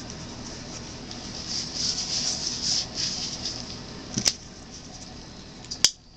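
Gloved hands handling plastic paint squeeze bottles: a crinkly rustle, then two sharp clicks, one about four seconds in and a louder one near the end.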